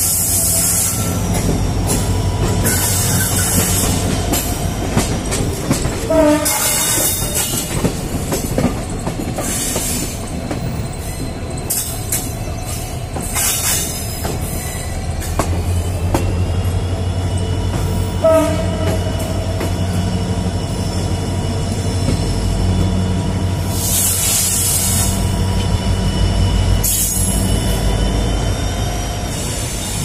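EMD WDP4D diesel-electric locomotive's two-stroke V16 engine humming steadily as it hauls a passenger train, heard together with the clatter and rushing noise of the moving coaches. From about halfway a thin high squeal of wheels on the curving track joins in.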